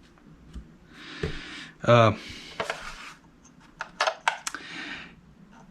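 A few light clicks and taps of small objects being handled, with a brief voiced 'um' about two seconds in and soft breathy noise.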